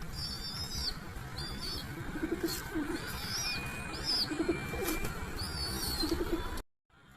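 Dove cooing in short, low notes that come in pairs, over a steady low background noise, while a smaller bird chirps higher at intervals. The sound cuts off abruptly near the end.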